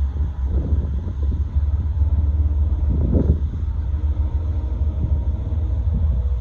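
Union Pacific gravel train rolling past with a steady low rumble.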